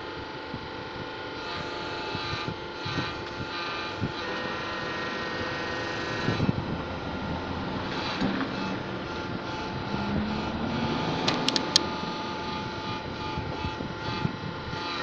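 Homemade hydraulic manipulator running: a steady machine hum with several fixed tones, a pitch that rises slowly for a few seconds in the middle, and a few sharp clicks a little before the end.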